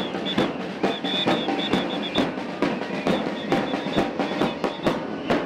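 Many snare drums and bass drums beaten together by a large crowd of drummers, a strong beat about twice a second over constant fast rolls. A shrill high tone sounds on and off above the drumming.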